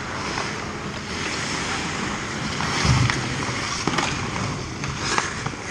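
Ice hockey play: a steady hiss of skate blades scraping on the ice, with a low thump about three seconds in and sharp clacks of sticks or puck near four and five seconds.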